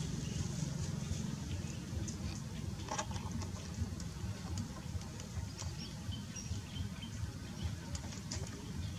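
Outdoor ambience: a steady low rumble with faint scattered ticks and a few short high chirps.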